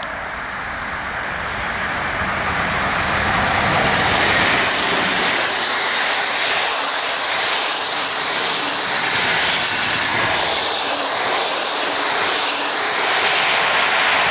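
Intercity passenger train hauled by an EP09 electric locomotive passing at speed: a loud, steady rush of wheels on rails that grows over the first few seconds, then holds as the coaches go by.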